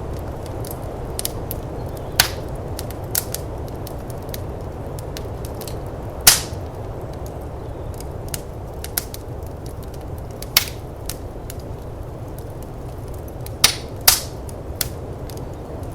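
Wood fire in a firepit crackling, with many small ticks and a handful of sharp, loud pops, over a steady low rushing noise of snowstorm wind.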